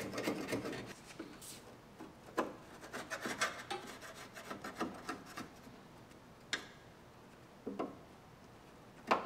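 Old hardened seam sealer being scraped and chipped out of a car body's sheet-metal seams with a hand tool: irregular scraping strokes mixed with sharp clicks, busiest in the first half, then a few single clicks with pauses between.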